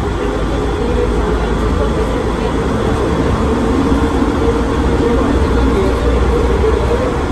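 Interior of a rubber-tyred automated people mover car running at speed through its tunnel: a steady rumble with a steady humming whine.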